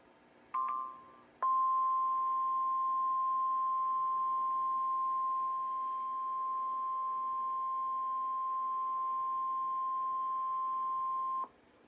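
NOAA Weather Radio alert sequence: a brief electronic blip, then the 1050 Hz warning alarm tone, one steady high tone held for about ten seconds and cut off sharply. The tone signals that a warning broadcast follows, here a flash flood warning.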